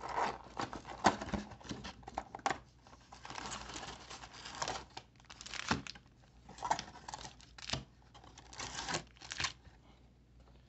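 Plastic wrapping of a trading-card box and its packs being torn and crinkled by hand, in irregular bursts of rustling with small knocks, dying away near the end.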